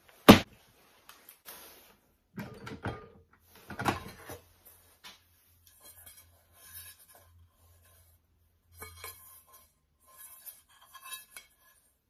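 A sharp knock right at the start, then irregular handling clatter: a mini rice cooker's metal non-stick inner pot being lifted out, knocked and turned over, with light clinks and scrapes.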